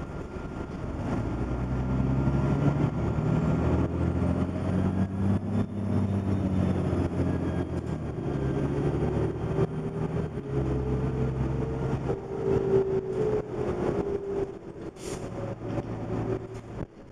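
Diesel engine of a 1998 New Flyer D30LF transit bus, heard from inside the cabin as the bus pulls away and accelerates. The engine note climbs, then drops back twice, about four and ten seconds in, as it shifts gear, with a faint whine above it.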